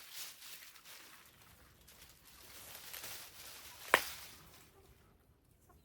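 Rustling of loofah vines and leaves being pulled and handled, with one sharp crack about four seconds in.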